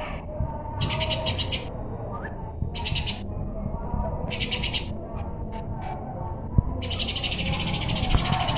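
A cungkok songbird singing in short, rapid, buzzy chattering trills, each lasting about half a second. A longer trill of about a second and a half comes near the end.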